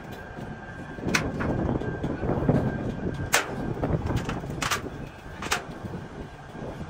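A heavy cast-iron truck brake drum casting tipped over and rolled across gritty, sandy ground: a rumbling scrape broken by several sharp metallic clanks.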